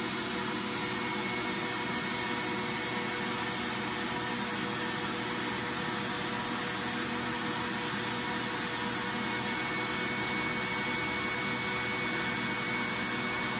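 Steady, even whir of a small electric motor running without change, with a faint fixed hum over it.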